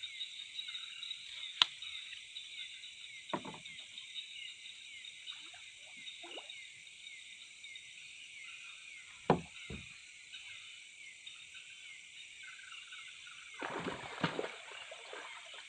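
A steady night chorus of crickets and other insects, with a few short knocks and a noisier stretch of water-like sound near the end.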